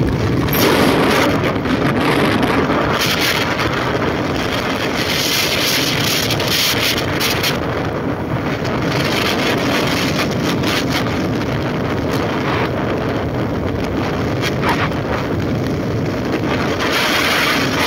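Wind rushing over the microphone and road noise from a motorcycle moving at speed, a dense steady rush that swells and eases in its upper part.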